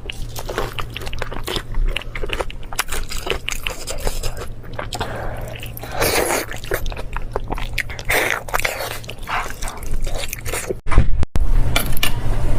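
Close-miked eating sounds: a person biting and chewing fatty pork, giving many short clicks of mouth and teeth. There is a brief dropout about eleven seconds in, after which the chewing resumes louder over a low hum.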